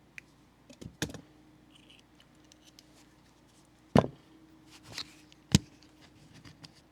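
A few sharp clicks and knocks of small metal sockets being snapped onto and worked on a socket rail: one about a second in, the loudest about four seconds in, and two more shortly after.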